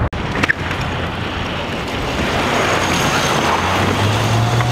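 Wind rushing on the microphone, a steady noisy roar with no engine sound, since the kart is electric. A short click comes about half a second in, and a low steady hum rises near the end.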